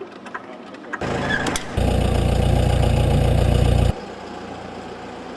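MQ-8C Fire Scout helicopter's turbine engine and rotor running steadily. The sound changes abruptly: it comes in about a second in, gets louder shortly after, then drops suddenly to a quieter level near the end.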